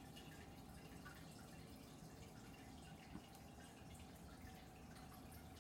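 Near silence: faint room tone with a thin steady hum and one soft tick about three seconds in.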